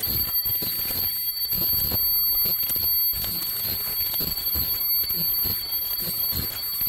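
High-speed KN95 mask-making machine running: a rapid, uneven clatter of knocks and clicks from its linkages and chain drive over a steady high-pitched whine.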